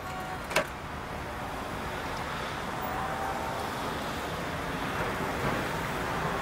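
A bicycle kickstand clacks once about half a second in, followed by a steady wash of busy street traffic noise.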